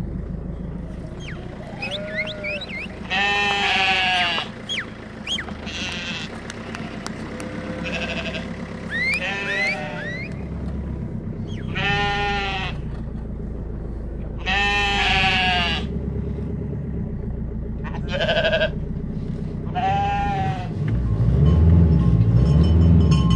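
Flock of sheep bleating around a car: about six long bleats stand out over the steady low hum of the car's engine, with music coming in near the end.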